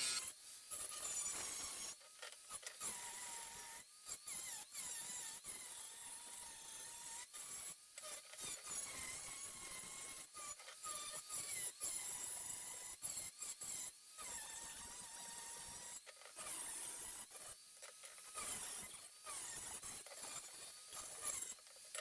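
Angle grinder grinding down fresh welds on steel, its whine wavering as the disc takes load, in short stretches broken by abrupt cuts.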